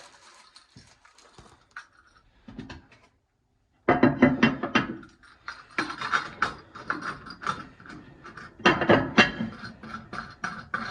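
Background music with a strong, quick beat that starts suddenly about four seconds in, after a moment of dead silence. Before it, faint clicks of small parts being handled.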